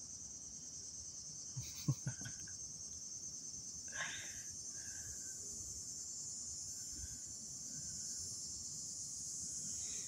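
Crickets chirping in a steady, high-pitched evening chorus. A couple of faint knocks come about two seconds in, and a brief mid-pitched sound about four seconds in.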